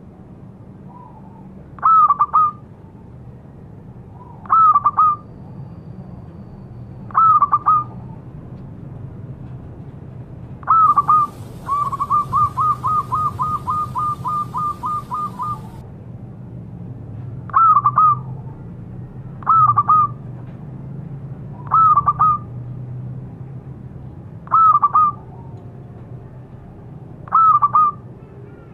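Zebra dove (perkutut) cooing: short phrases of a few quick notes repeat about every two to three seconds. About twelve seconds in comes a run of about a dozen rapid, even coo notes lasting some four seconds.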